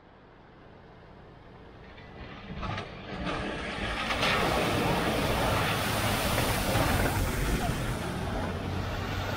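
A car driving through a flooded ford, its wheels throwing up a rushing spray of water along with the engine's low rumble. The sound grows louder over the first few seconds as the car comes closer, then stays steady.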